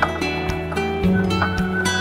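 Background music: a dreamy guitar track with held notes and a steady beat.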